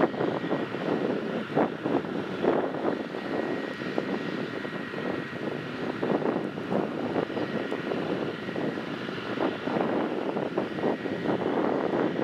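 Volvo wheel loader's diesel engine running hard as it dumps chicken litter from its bucket into a manure spreader. The sound is a dense rushing rumble with frequent brief surges and a faint steady high whine.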